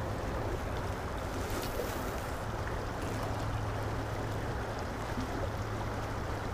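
Steady rushing of a small stream's flowing water, even throughout.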